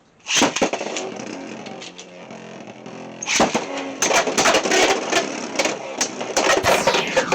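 Beyblade spinning tops launched into a plastic stadium. They whir with a steady pitch, then from about three seconds in they clash, giving a rapid run of sharp clicks and knocks.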